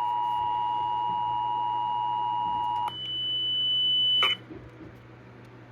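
Emergency Alert System two-tone attention signal, a steady dual tone that cuts off about three seconds in. A higher single steady tone follows, growing louder for about a second and a half before ending abruptly with a click, leaving a faint low hum.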